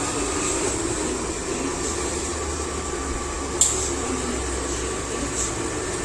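Xiaomi robot vacuum running steadily with a high whine, with one sharp click a little past halfway.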